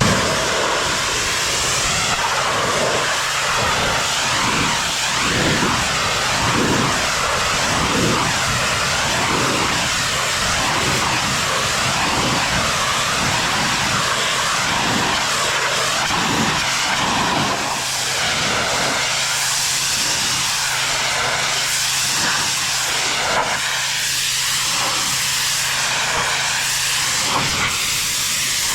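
Pressure washer running and spraying: a loud, steady hiss of the water jet that wavers up and down in tone, over a steady low engine or pump hum.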